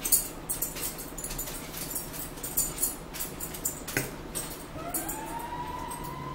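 Close-up eating sounds: chewing, lip-smacking and mouth clicks while bread is eaten. About five seconds in, a drawn-out high whine rises in pitch and then holds.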